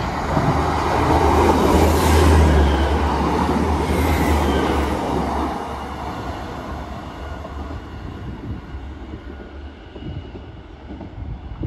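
A Class 150 and Class 156 diesel multiple unit pass through the station as one train. The diesel engines rumble deeply and the wheels run on the track, loudest about two seconds in. The rumble dies away after about five seconds, leaving the fading sound of the train.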